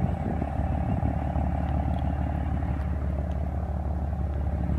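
Steady low rumble with a constant hum, from a running vehicle engine.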